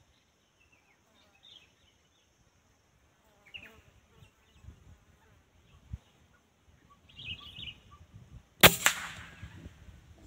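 A single air-rifle shot firing a 14.6-grain slug about eight and a half seconds in: one sharp crack with a short ring-off. Before it, only faint rustles and small clicks.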